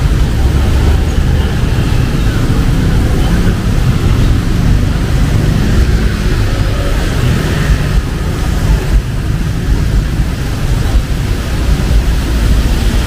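Steady rain with the rumble of traffic on a wet city street: an even hiss over a deep, constant rumble.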